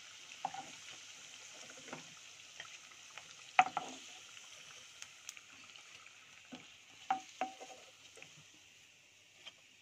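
Hot oil sizzling in a pan as sabudana vadas deep-fry, with a few sharp clinks of a utensil against the pan, the loudest about three and a half seconds in and two more about seven seconds in. The sizzle thins out near the end.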